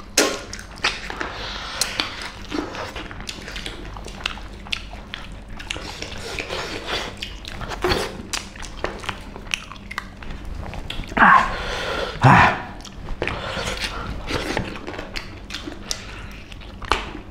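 Close-up eating sounds of people eating meat curry and rice by hand: wet chewing, lip-smacking and many short clicks as meat is bitten off the bone. About two thirds of the way through come two short, louder cries that fall in pitch.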